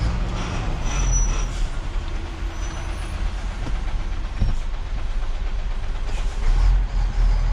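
Hino 500 truck's diesel engine running at low speed, heard from inside the cab as the loaded truck rolls slowly onto a weighbridge, with a single clunk about four and a half seconds in.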